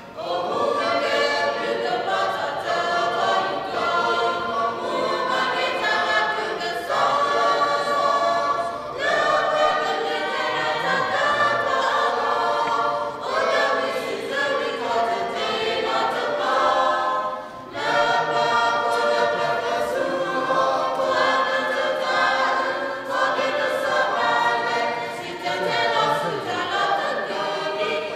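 A mixed choir of men and women singing together in sustained phrases, with brief pauses for breath between them.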